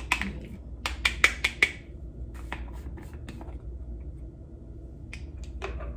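Sharp clicks and taps from a plastic loose-powder jar being handled, a quick cluster of about five around a second in and a few more near the end, over a low steady hum.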